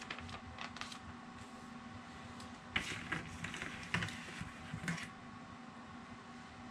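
Small plastic LEGO pieces clicking and rattling as they are handled, with a busier run of sharper clicks from about three to five seconds in.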